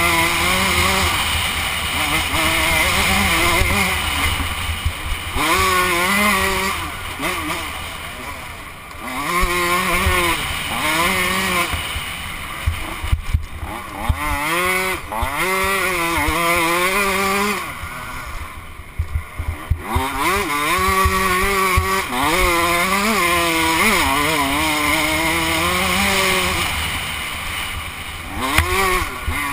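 KTM 105 two-stroke dirt bike engine being ridden hard, its revs climbing and falling over and over as the throttle is worked, with wind rushing over the helmet-mounted microphone. The revs drop away twice for a couple of seconds, about a third and two-thirds of the way through, and there are a few sharp knocks from the bike going over bumps.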